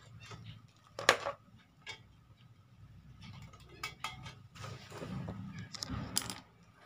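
Handling noise: scattered clicks and rattles as a multimeter's test lead is handled and its black probe tucked onto the TV board's ground, the sharpest click about a second in, with rustling near the end.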